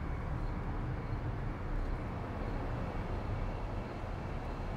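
Steady low rumble and hiss of outdoor city background noise, with no distinct events.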